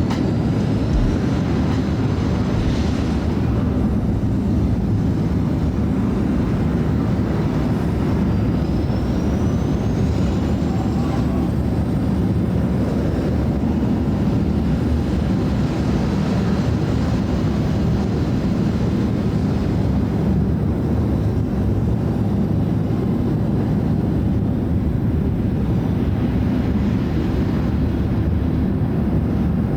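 Steady low rumble of a moving vehicle, with a faint whine rising in pitch from about eight seconds in.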